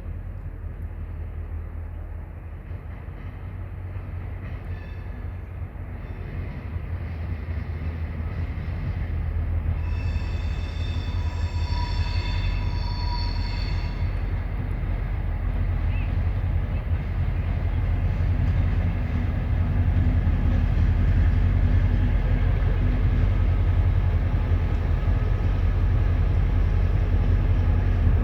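EMD G26C diesel locomotive's two-stroke engine drone growing steadily louder as it approaches. About ten seconds in, it sounds its Nathan P3 air horn in one chorded blast of about four seconds.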